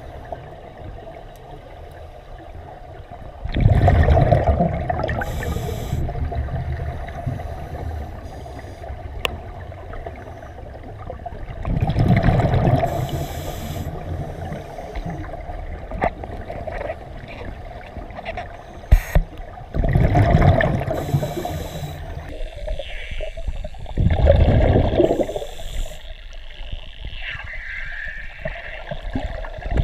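Scuba diver breathing underwater through a regulator: four loud rushing bursts of exhaled bubbles several seconds apart, with a quieter rush between breaths. A couple of sharp clicks are also heard.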